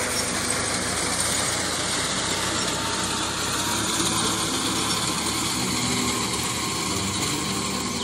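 A tractor engine running steadily.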